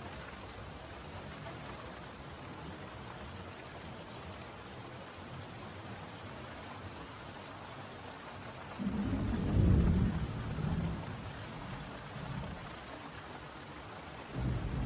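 Steady rain falling, with a loud low rumble of thunder about nine seconds in that dies away over two seconds, and another rumble starting near the end.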